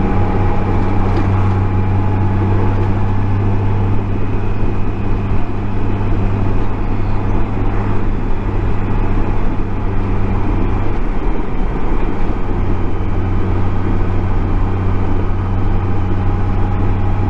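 Honda Goldwing GL1800 flat-six engine running at cruising speed with steady wind and road noise, heard from the rider's helmet mic. The engine's low hum drops out briefly about eleven seconds in, then returns.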